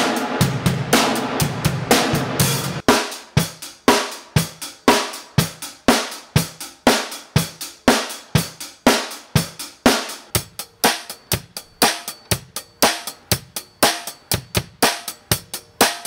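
Acoustic drum kit being played. About three seconds in, a dense full-kit pattern gives way to separate sharp strikes, each ringing out briefly, which come more quickly toward the end.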